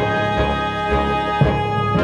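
Background music: sustained instrumental chords over a steady beat of about two strikes a second.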